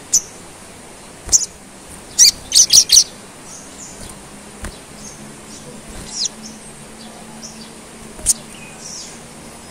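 Sunbird (sogon) giving short, sharp, high-pitched chirps: a quick run of four or five about two seconds in, then scattered single calls, one of them falling in pitch.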